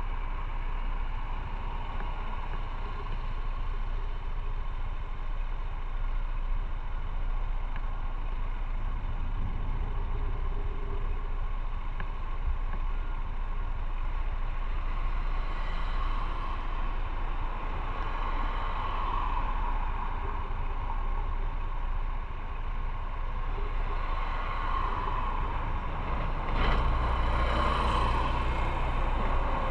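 Motorcycle being ridden on the road: the engine runs steadily under a continuous rush of road and wind noise, which grows louder near the end.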